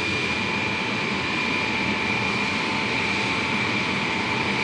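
Il-76 military transport's turbofan jet engines running on the ground: a steady rush with a steady high whine above it.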